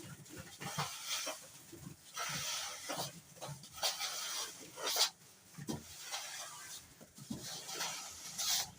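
Repeated scraping strokes of a steel trowel spreading plaster, with a few sharp clicks between strokes.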